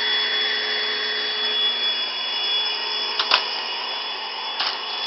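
Vacuum cleaner running steadily with a high whine, its nozzle being used to groom a cat's fur. Two brief knocks sound about three and four and a half seconds in.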